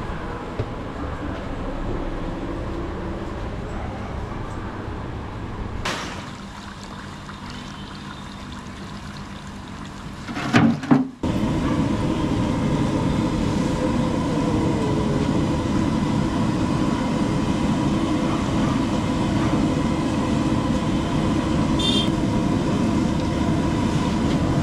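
A low steady background rumble, broken by a short loud burst about eleven seconds in. After that a louder, even roar sets in: the gas burner's flame under a large iron kadhai of hot oil, with samosas frying in it.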